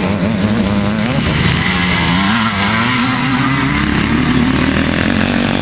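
Several vintage motocross motorcycles racing past, their engines revving with the pitch rising and falling as the riders work the throttle.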